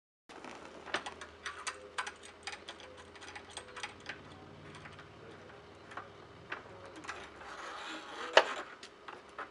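Irregular metallic clinks and clicks of shade sail corner hardware, a snap hook, shackle and steel cable, being handled and clipped onto a steel wall bracket, with one sharp, louder click about eight seconds in.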